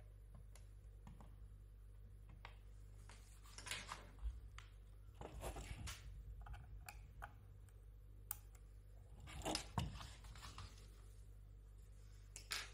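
Faint handling noises of a small metal control box and its cable: scrapes and rustles with a few light clicks, over a steady low hum.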